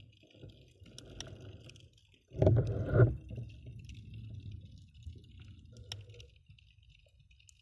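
Muffled underwater sloshing and gurgling of water around a submerged camera, with one louder surge of water about two and a half seconds in, then a softer wash with faint scattered clicks.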